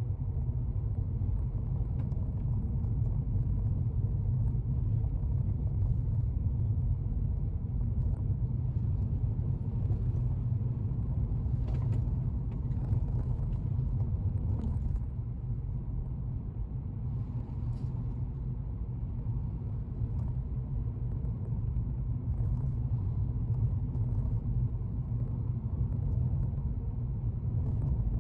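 Steady low rumble of a car driving, road and engine noise heard from inside the cabin, with a few faint ticks.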